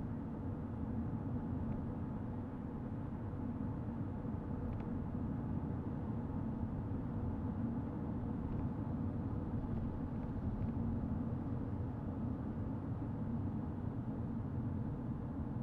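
Car driving along: a steady low rumble of tyres and engine that does not change.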